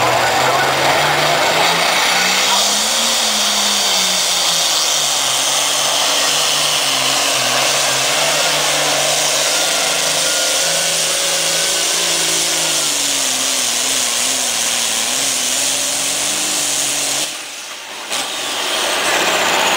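John Deere 4430 pulling tractor's diesel engine running flat out under load as it drags a weight-transfer sled, its pitch climbing about two seconds in, then holding and wavering as the load builds. Near the end the engine drops off abruptly as the pull ends, then picks up again briefly.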